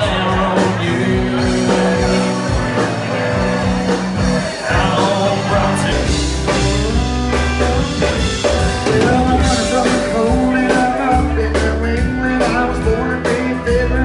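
Live bar band playing loud amplified rock-and-roll-style country: electric guitars, bass and drum kit, with a singer. The bass gets heavier about six seconds in.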